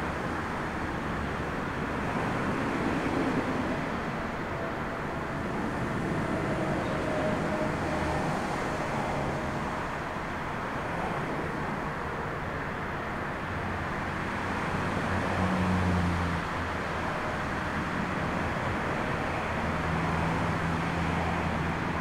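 Jet engine noise from a Boeing 737 moving along the runway, a steady rushing sound with uneven low rumble, in strong storm wind.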